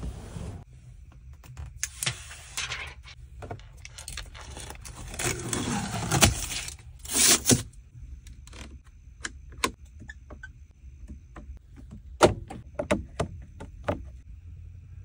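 Mahindra Thar cabin trim and controls being handled: rustling and scraping against the seat and trim in the first half, then a run of short, sharp clicks as the dashboard knob and switches and the door's window switch are pressed and turned. A steady low hum runs underneath.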